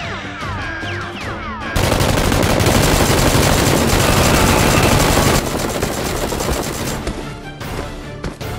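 Rapid automatic gunfire, dubbed in as a sound effect, over background music. It breaks in loudly about two seconds in, runs for about three and a half seconds, then stops abruptly, leaving the music with a few scattered sharp hits.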